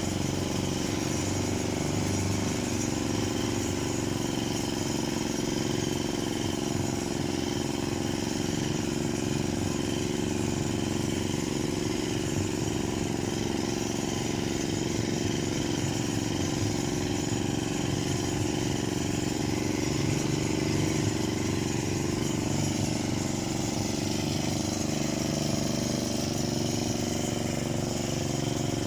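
Two-stroke engine of a Parma BP-058 chainsaw running steadily at an even pitch, with no change in speed.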